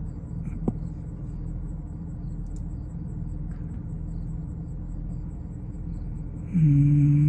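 Steady low machine hum, with a faint high ticking repeating a few times a second. Near the end a man gives one drawn-out, rising hum.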